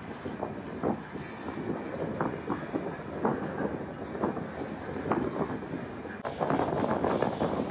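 Iron ore train running, heard from on top of a loaded ore wagon: a continuous rumble of wheels on rail, broken by irregular clanks and knocks from the wagons, getting louder about six seconds in.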